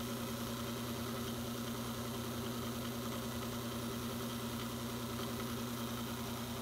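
Taig micro lathe running steadily with its spindle turning a wax tube: an even, unchanging motor hum.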